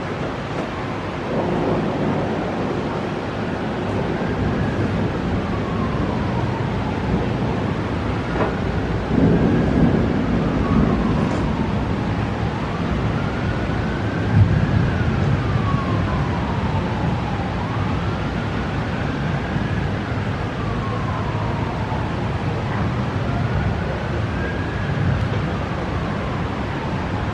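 Emergency vehicle siren in a slow wail, rising and falling about every five seconds, over a steady wash of storm noise, with a low rumble about nine seconds in.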